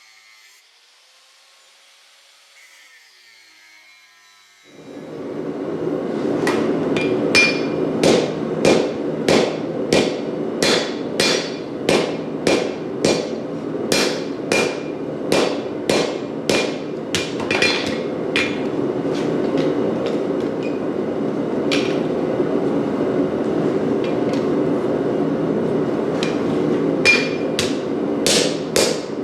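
Hand hammer striking hot Damascus steel on an anvil, about two ringing blows a second for around twelve seconds, then a few scattered blows near the end. A steady rushing roar starts about five seconds in and runs under the strikes.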